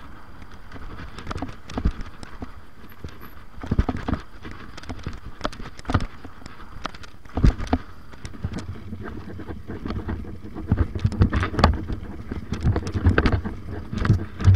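Mountain bike riding a dirt jump track: tyres crunching over loose dirt and gravel, with frequent irregular knocks and rattles from the bike over the bumps. The knocks come thicker in the last few seconds.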